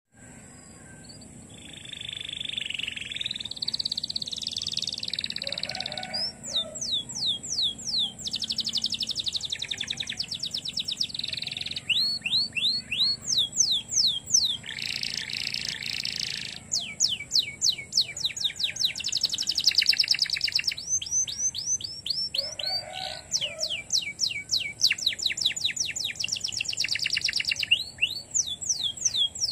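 Domestic canary singing a long, energetic song of fast rolling trills and rapid repeated downward-sweeping notes, in phrases with brief pauses, starting about two seconds in.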